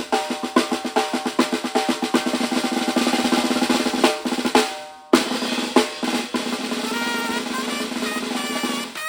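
Banda band playing: a fast snare drum roll under sustained brass notes. A loud hit about five seconds in, then the horns carry a moving melody over the drums.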